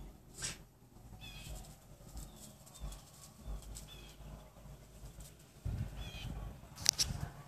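Small birds chirping: short high calls repeating roughly once a second, over a low rumble on the microphone. A sharp click near the end is the loudest sound.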